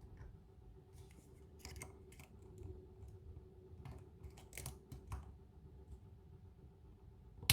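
Faint, irregular small clicks and scrapes of a lock pick working the pin stack of a kik lock cylinder, with one sharper click near the end.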